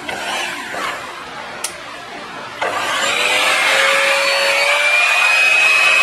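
Booster pump motor of an Alpha Impress IM-9EP water heater switched on and running dry, with no water in the unit. A faint click, then about two and a half seconds in a steady motor whine starts, rising a little in pitch as it comes up to speed and then holding.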